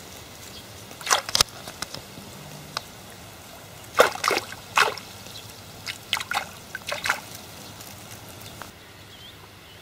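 Water splashing and sloshing in short, irregular bursts, several times, in shallow water among reeds.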